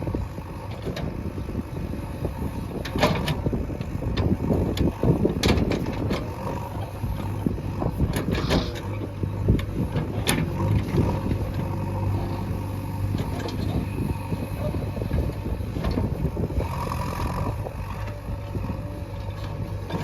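JCB 3DX backhoe loader's diesel engine running steadily under load as it digs, with a few sharp knocks and clanks from the working equipment.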